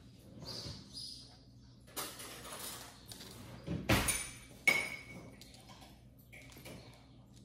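Light clicks, taps and scuffs of a kitten and a puppy moving about on a hard laminate floor, with a few sharper knocks, the loudest about four seconds in and another with a brief high ring just after.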